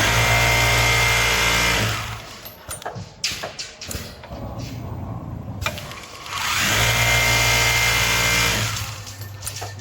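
Richpeace automatic garment sewing machine stitching at speed in two runs of about two seconds each, a steady even-pitched whir, with scattered clicks and knocks in the pause between them.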